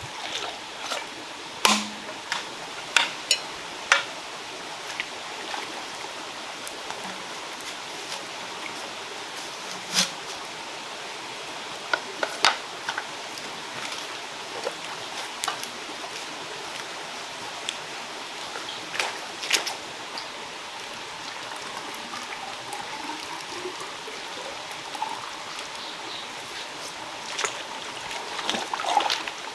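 Steady rush of a forest stream, with scattered sharp clicks and knocks over it, several close together in the first few seconds and a brief cluster near the end.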